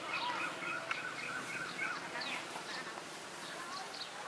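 Birds chirping: many short, overlapping calls, with a quick run of evenly spaced notes in the first second and a half.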